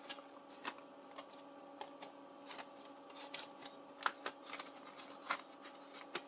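Paper money being handled: irregular soft rustles and small clicks as dollar bills are pulled out, counted and slipped into a paper envelope, with a faint steady hum underneath.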